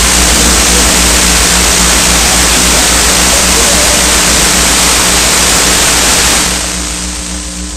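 Noise music: a loud, dense wall of hiss over a low steady drone. About six and a half seconds in, the hiss fades away, leaving the drone and a few steady ringing tones.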